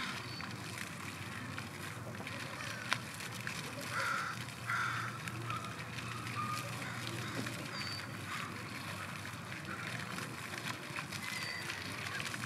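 Steady outdoor background noise with a low hum, faint short high calls now and then, and a single sharp click about three seconds in.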